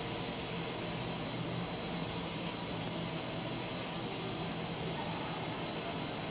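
Fiber-reinforced PVC hose production line running, its fiber-winding drum spinning: a steady, even machine noise with a low hum and a faint high whine.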